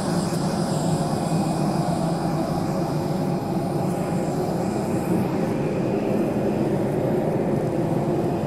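Steady drone of jet airliner turbine noise on an airport apron: a rushing hiss with several even, unchanging tones.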